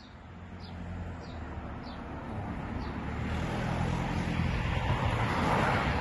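A car passing on the road, its noise growing steadily louder and peaking near the end. Under it runs a low steady hum from NICE TOO 3024 electromechanical swing-gate operators driving the gate leaves. A few short bird chirps come in the first three seconds.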